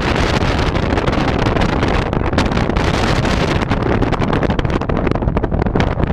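Wind buffeting the microphone: a loud, steady low rumble with constant crackling gusts.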